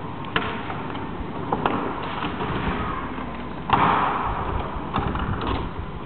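Automatic timber sectional garage door closing on its tracks, with scattered clicks and rattles and one louder clunk a little past the middle.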